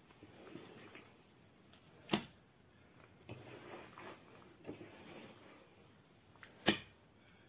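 Hands mixing flour and water for bread dough in a metal basin: soft, faint rustling and squishing, with two sharp knocks about four and a half seconds apart.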